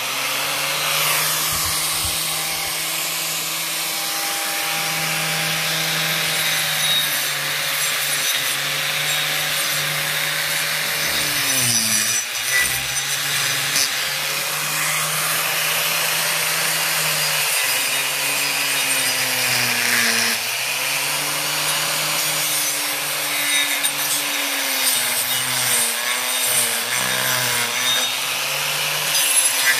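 Makita electric angle grinder running continuously while its disc carves and rasps into the dead wood of a Chinese elm trunk, a steady motor whine over a coarse wood-grinding hiss. The motor's pitch sags briefly a few times, around twelve and twenty seconds in, as the disc bites harder into the wood.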